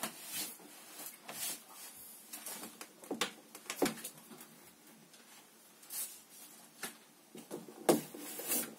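Scattered clicks and knocks of hands working the braided hoses and threaded fittings under an electric storage water heater, the loudest about four seconds in and near the end.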